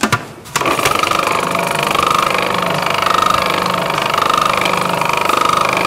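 Electric food processor switched on about half a second in, its motor running steadily with the blade spinning through a small amount of garlic paste seasoned with mustard, salt and pepper.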